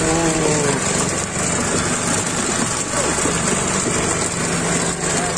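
Fishing boat's engine running steadily with a low, even hum under a wash of noise.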